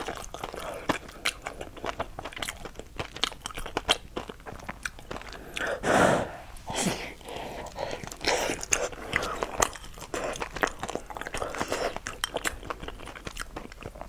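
Close-miked eating: a person biting and chewing large mouthfuls of soft food, with many small wet mouth clicks and smacks. There is one louder burst about six seconds in.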